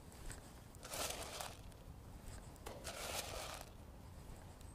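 Dry 2 mm fish-feed pellets rattling as handfuls are scooped from a plastic bait tray and thrown out as loose feed, in two short rustling bursts about a second in and about three seconds in.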